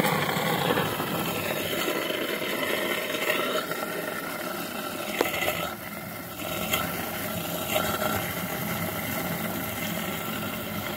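Water pump running at full speed through a DIY PVC venturi into an aquarium tank: a steady rush of churning water and air bubbles as the venturi sucks in air. A faint click about five seconds in.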